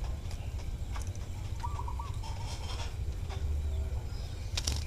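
A bird calling faintly twice with short chirping phrases, over a steady low rumble, with a few light clicks near the end.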